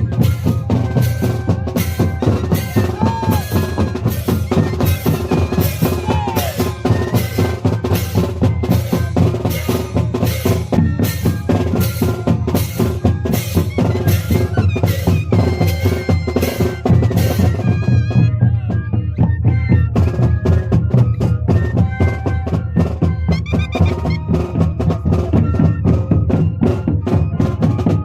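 Moseñada band music: moseño flutes playing a sustained tune over a steady beat of drums. The high notes drop out for a couple of seconds about two-thirds of the way in, then return.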